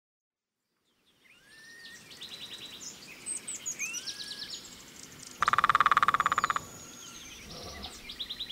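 Wildlife ambience fades in after about a second of silence: assorted animal calls, with chirps, short rising and falling whistles and fast trills. About halfway through comes one loud, rapidly pulsing call that lasts about a second.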